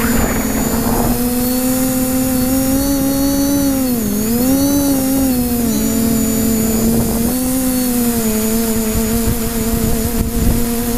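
Multirotor drone's brushless motors and propellers, driven by ZTW Spider 40A ESCs on SimonK firmware, whining steadily in flight as heard from the onboard camera, with a rough rumble of wind underneath. The pitch dips and comes back up about four seconds in, with smaller drops around six and eight seconds as the throttle is adjusted.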